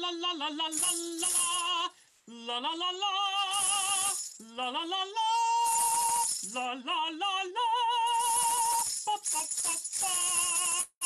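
Music with a voice singing long held notes with vibrato, sliding upward into several of them. It breaks off briefly about two seconds in.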